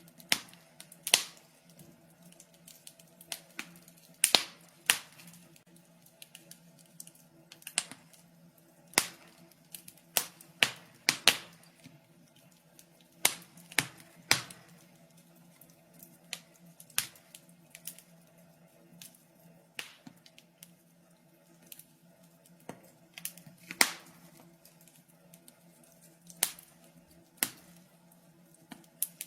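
Wood fire crackling: irregular sharp pops and snaps at uneven intervals, over a faint low steady hum.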